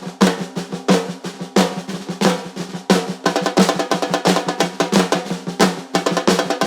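Batucada drumming: snare drums playing a busy, roll-like pattern over strong regular drum hits, about three beats every two seconds.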